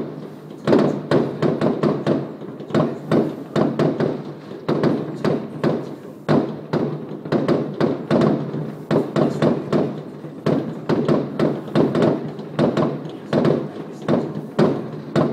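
Many fireworks going off at once: a continuous run of overlapping bangs and booms, several a second, with no break.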